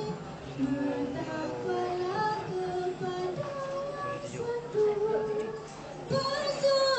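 A group of girls singing a melody together in long, held notes that glide between pitches, growing louder about six seconds in.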